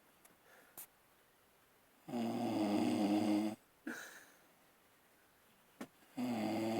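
A sleeping man snoring: one long, rasping, pitched snore about two seconds in that lasts about a second and a half, then the next snore begins near the end, about four seconds apart.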